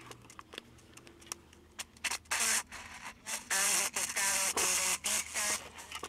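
A voice from an AM broadcast coming through the small speaker of a Vega 404 transistor radio, running on a reduced 6-volt supply. Faint crackles come first; the voice starts about two seconds in.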